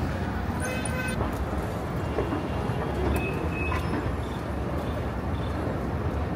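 City street traffic: a steady rumble of passing vehicles, with wind buffeting the microphone. A short pitched squeal or horn sounds about half a second in, and a brief high tone about three seconds in.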